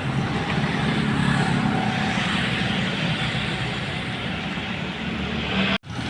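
A motor vehicle's engine running steadily amid road traffic noise, with no revving. The sound drops out abruptly for an instant near the end.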